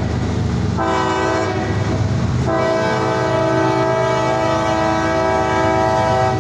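Multi-chime air horn of an approaching CSX freight diesel locomotive, blowing for a grade crossing: a shorter blast about a second in, then a long blast from about two and a half seconds in, over the low rumble of the diesel engines.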